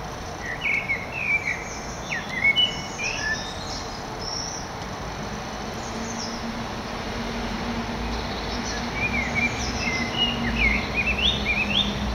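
A small bird singing two runs of quick chirping notes, one in the first few seconds and another near the end, over steady outdoor background noise with a faint low hum.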